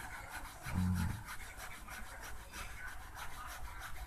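A soft carbon motor brush being scraped and sawn through with a thin blade, in quick repeated rasping strokes. A brief low hum about a second in.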